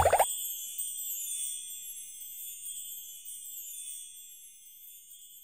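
A high, thin twinkling chime shimmer, like a wind chime or sparkle effect, fading out slowly over several seconds.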